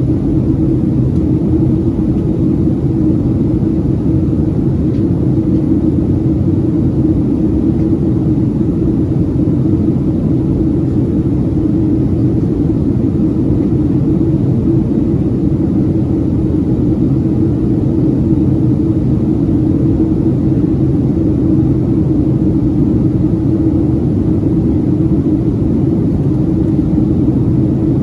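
Steady cabin drone of a Boeing 737-700 in descent: engine and air noise from its CFM56-7B turbofans, an even low rumble with a steady hum in it.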